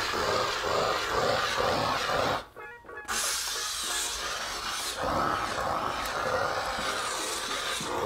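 Kärcher SC1 handheld steam cleaner hissing steadily as it jets steam onto a countertop, with background music under it. The sound drops out for about half a second a little before the middle.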